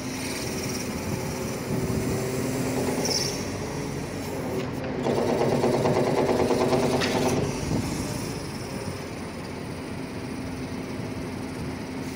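Hydraulic system of an Atlas 330.1 truck-mounted crane running under lever operation, with a steady hum that grows louder and harsher for a couple of seconds about five seconds in. This is the abnormal metallic sound that the owner traces to the hydraulic pump.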